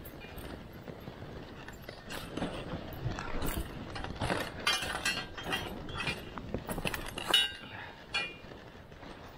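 Dog sled on the move behind a team, with irregular metallic clinking and rattling from the sled and its harness hardware.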